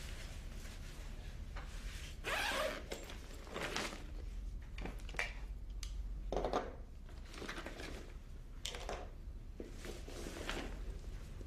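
A series of short rustling and scraping noises a second or two apart, over a low steady hum; the loudest come a little over two seconds in and again about halfway through.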